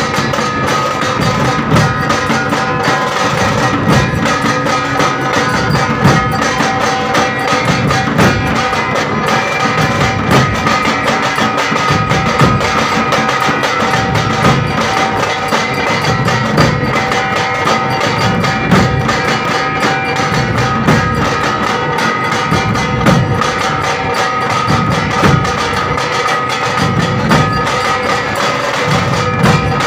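A group of large double-headed barrel drums (dhol) struck with curved sticks in a dense, continuous rhythm, with heavier accents about every two seconds. A few steady high tones are held underneath.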